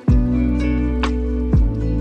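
Background music: a beat-driven track whose deep bass and drums come in sharply right at the start, over steady sustained notes, with hits about a second in and again near the end.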